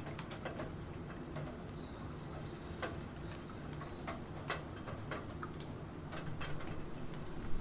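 Computer keyboard typing: irregular, uneven key clicks over a steady hiss of rain and a low, steady hum.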